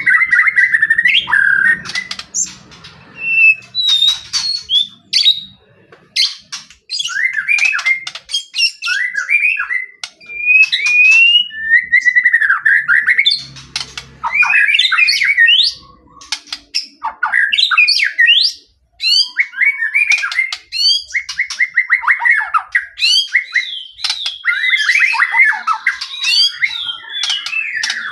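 White-rumped shama in full, persistent song: varied phrases of rising and falling whistles and rapid trills, with a few brief pauses.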